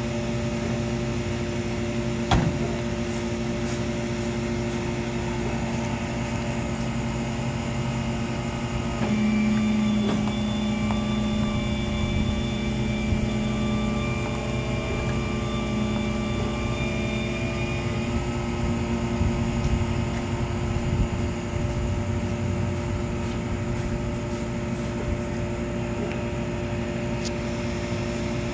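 An engine running steadily with a constant hum. About nine seconds in it gets a little louder and a higher whine joins, fading out about nine seconds later. A single sharp click comes about two seconds in.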